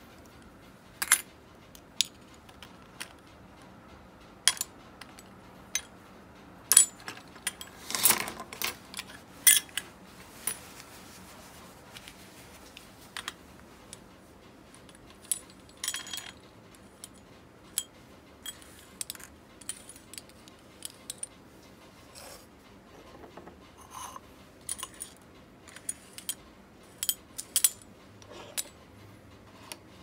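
Small metal parts of an Ambassadeur 1500C baitcasting reel clicking and clinking as they are handled, in many separate sharp ticks at irregular intervals, busiest about a third of the way in and again over the second half.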